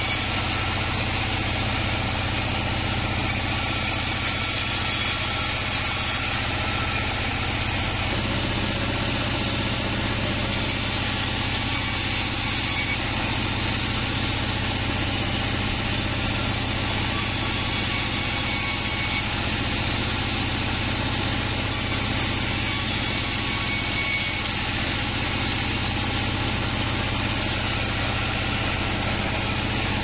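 Large Bandsaw36 band sawmill running steadily, its blade cutting lengthwise through a kapok log as it is fed along the carriage table.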